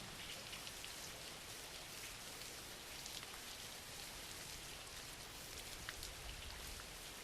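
Steady, soft rain falling, with many small drops pattering on a surface.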